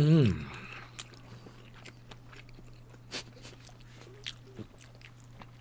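A short, falling, hum-like vocal sound at the start, then faint, scattered clicks and smacks of a person chewing kielbasa sausage close to the microphone, over a steady low electrical hum.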